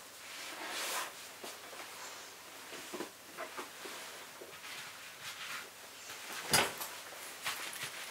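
Faint handling sounds in a small room: light rustling and scattered soft clicks, with one sharper knock about six and a half seconds in.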